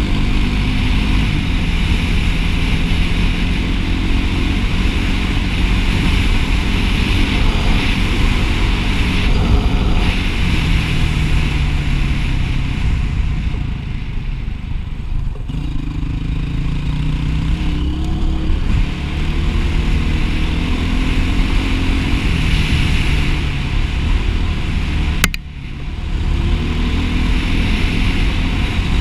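Dirt bike engine running under way, its pitch climbing again and again as it accelerates and shifts up through the gears, heard from the rider's helmet. Near the end a single sharp click, then a short drop in level before the engine picks up again.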